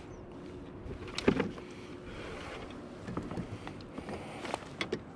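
Knocks and thumps of a landed bass, net and tackle being handled against a plastic fishing kayak's hull and deck. The loudest knock comes about a second in and a few smaller ones near the end, over a low steady background noise.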